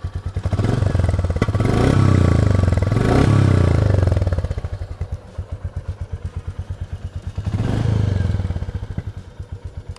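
Royal Enfield Meteor 350's 349 cc single-cylinder engine idling slowly with an even pulse, just ticking over after a fresh start. It swells louder twice in quick succession about two and three seconds in, and once more near the end.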